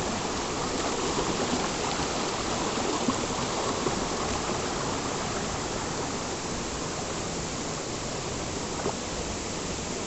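Water rushing steadily over the rocks of a shallow stream, an even splashing rush.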